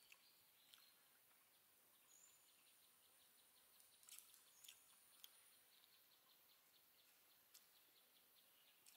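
Near silence with faint outdoor ambience: an insect chirping in a fast, even pulse, a few short high bird chirps, and a handful of soft clicks around the middle.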